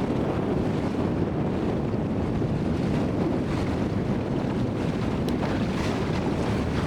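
Strong wind buffeting the microphone aboard a sailing boat under way, a steady heavy rush with water washing along the hull beneath it.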